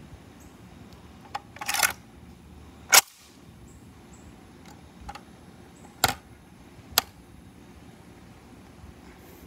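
Metallic clicks and clacks of a Polish AK-47's wire folding stock being swung and latched. A short rattle comes first, then the loudest sharp clack about three seconds in, and two more sharp clicks around six and seven seconds in.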